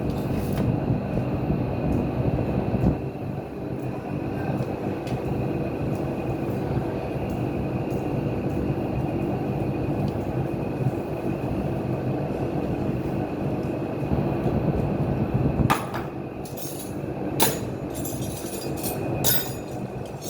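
A steady mechanical rumble with a faint high whine, joined near the end by a series of sharp metallic clinks and knocks.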